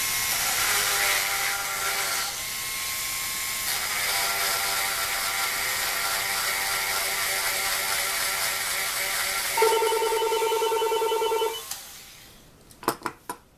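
A small electric sanding tool runs steadily while grinding a mandolin nut down to height, with a whine and a gritty hiss. Near the end the whine takes on a fast pulsing before the tool stops, and then come a few sharp clicks.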